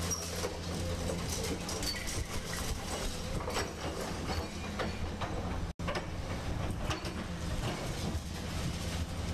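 Hydraulic excavator at work: a steady low diesel engine hum with irregular metallic clanks and rattles over it. The sound cuts out for an instant a little over halfway through.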